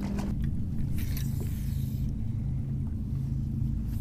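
Steady low hum of a small electric motor aboard a bass boat, over low rumble, its pitch stepping down just after the start. A brief hiss about a second in.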